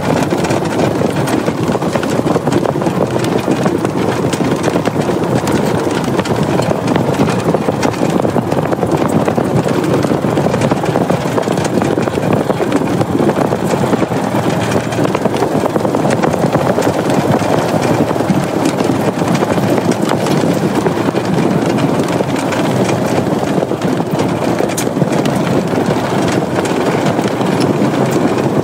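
Vehicle driving along a gravel drive: steady running and tyre noise with constant rattling and clatter.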